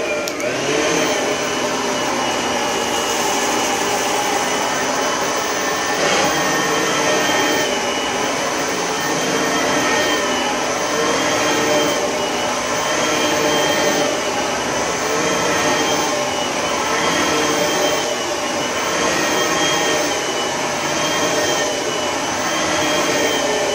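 Oreck bagged upright vacuum cleaner running steadily on carpet, its motor pitch wavering slightly as it is pushed back and forth. It is switched off at the end.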